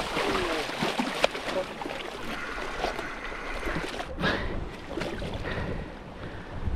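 Sea water washing and sloshing against a rock ledge, with a hooked cod splashing at the surface near the start as it is hauled up the rocks.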